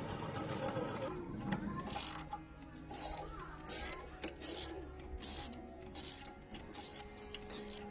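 A busy mechanical clatter for about two seconds, then a steady rhythm of short hissing strokes, a little over one a second.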